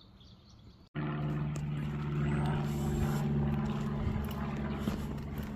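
An engine's steady low drone starts abruptly about a second in, after a moment of silence, and holds at an even pitch.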